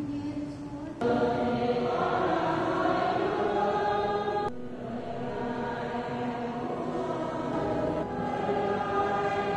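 A group of voices chanting together in long held notes. The sound changes abruptly about a second in and again around four and a half seconds in.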